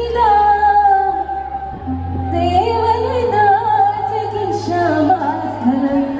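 Music: a woman singing a melody with vibrato over held bass notes, which change twice and stop near the end.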